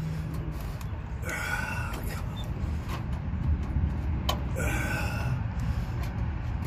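A heavy-duty staple gun, held against a wooden post to fasten chicken wire, snaps once sharply about four seconds in. Under it runs a steady low engine-like rumble, and two short pitched calls sound about three seconds apart.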